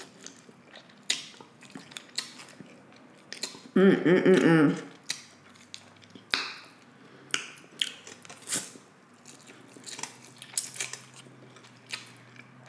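Close-miked eating sounds: a person slurping and chewing noodles, with scattered wet mouth clicks and smacks. About four seconds in comes a loud hummed "mmm" lasting about a second.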